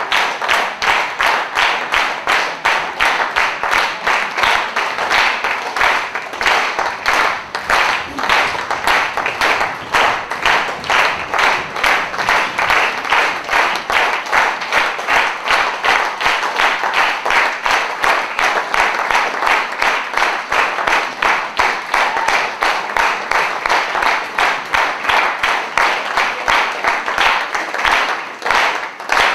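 Theatre audience applauding, clapping together in a steady rhythm of about two claps a second.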